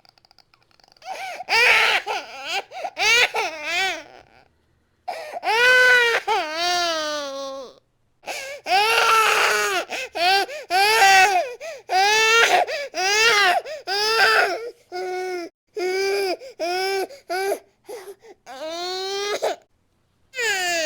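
Baby crying hard: a string of loud, high-pitched wails, each a second or two long, broken by short gasping pauses for breath.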